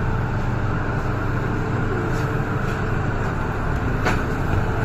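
MTR M-train electric multiple unit pulling out of an underground station, heard inside the cabin: a steady low rumble and hum from the running train, with one sharp click about four seconds in.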